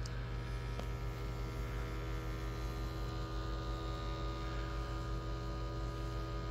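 LG UP970 4K Blu-ray player's disc drive running a disc at high speed with a steady vibrating drone. The hum comes from resonance in the thin plastic drive mechanism, caused by the disc's heavy label printing sitting off-centre.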